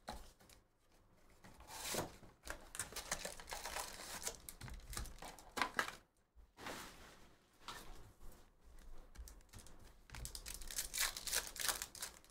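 A cardboard trading-card box being torn open, then the wrapped card packs inside crinkling as they are pulled out and handled. Bursts of tearing and crinkling come in irregular spells, with a longer spell near the end as a pack is torn open.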